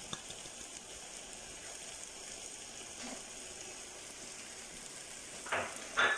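Onions sizzling in a large frying pan as they cook down and dry out, with two louder brief scrapes or clatters near the end.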